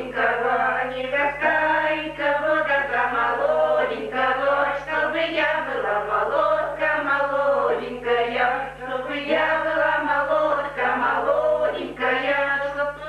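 A group of women folk singers singing a Northern Russian village song unaccompanied, several voices together in long drawn-out phrases, with a steady low hum from the recording underneath.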